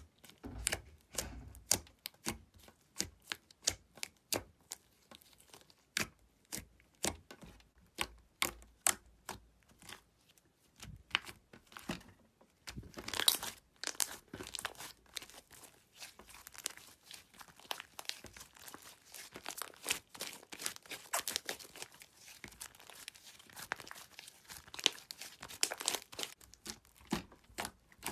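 Hands squishing, pressing and slapping a thick, glossy slime, giving an irregular run of sticky pops and crackles, densest about halfway through and again later on.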